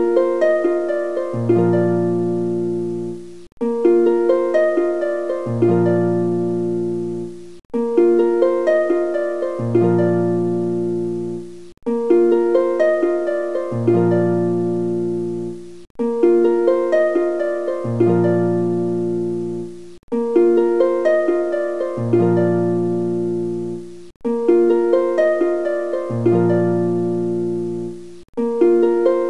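Background music of plucked, harp-like notes: a short phrase that loops about every four seconds, with a brief gap before each repeat.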